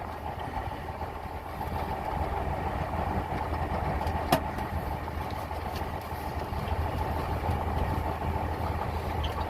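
Grain truck's diesel engine idling steadily, with a single sharp click about four seconds in.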